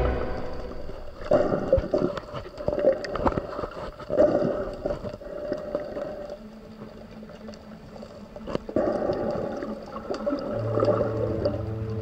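Muffled underwater water noise picked up by the camera, sloshing and bubbling in irregular bursts with small clicks, quieter for a couple of seconds in the middle. Music fades back in near the end.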